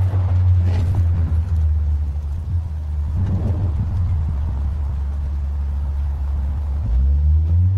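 A low, steady motor rumble, like an engine running close by, that comes in abruptly and shifts up in pitch near the end.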